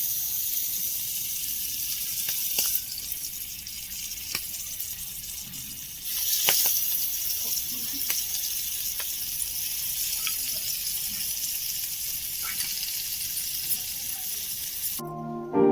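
Food sizzling in hot oil in a pan: a steady hiss with scattered pops and crackles, getting louder about six seconds in.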